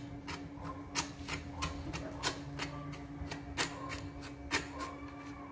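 Irregular small metallic clicks and taps as the loosened valve lock is unscrewed and taken off a CO2 airgun's valve, over a steady low hum.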